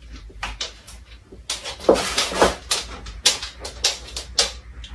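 A dog whimpering in short cries, the clearest two about two seconds in, among a run of sharp clicks and taps.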